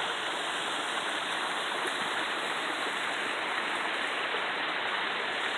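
A small mountain stream and waterfall rushing steadily.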